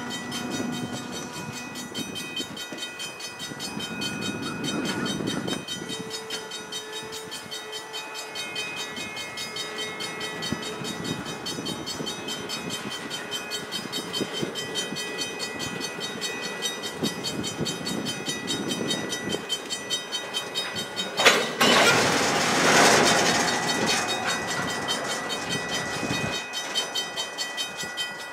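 Double-stack container cars of a freight train rolling slowly past, with steady, evenly spaced clicking. About 21 seconds in, a loud rushing noise lasts some three seconds.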